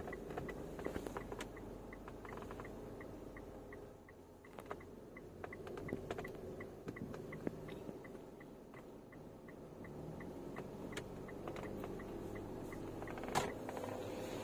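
Mitsubishi Pajero Sport's turn-signal indicator ticking steadily, about three ticks a second, with the engine and road hum of the cabin beneath. A single sharp click comes near the end.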